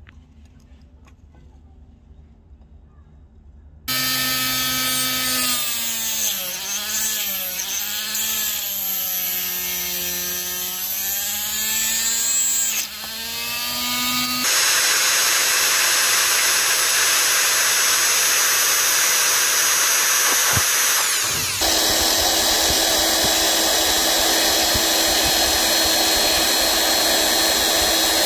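After a few seconds of low background, a small high-speed rotary tool with a thin cut-off disc whines, its pitch sagging and recovering again and again as the disc bites into a small workpiece held in a vise. Then a louder, steadier power-tool noise takes over, changing once near the end to a dowel spinning in a chuck and being sanded against a sanding disc.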